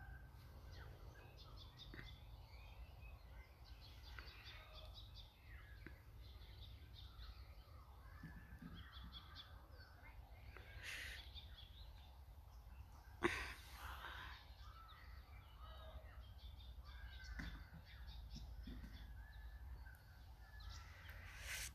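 Faint birds calling and chirping in the trees, scattered short calls over a low steady rumble of wind on the microphone. A single sharp tap a little past the middle is the loudest sound.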